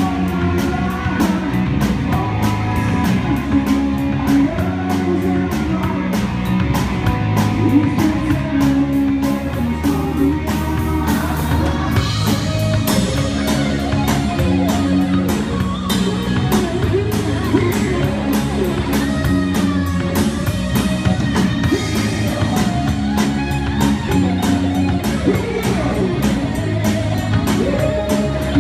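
Live rock band playing through the stage monitors: drum kit keeping a steady beat under electric guitar and bass.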